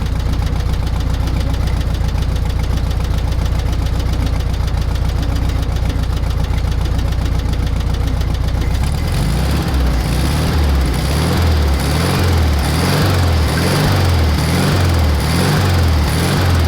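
Volkswagen 1600 air-cooled flat-four in a 1973 Super Beetle running at a steady speed, then from about halfway its revs rise and fall over and over, a little more than once a second. The engine will not settle back to low idle after the carburetor rebuild.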